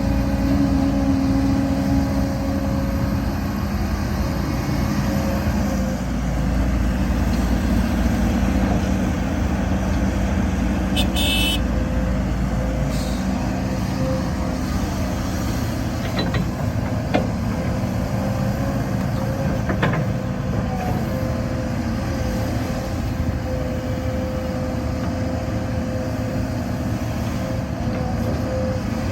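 Heavy diesel earthmoving machinery, an excavator with dump trucks, running steadily at work. A brief higher-pitched sound comes about eleven seconds in, and a few sharp knocks come later.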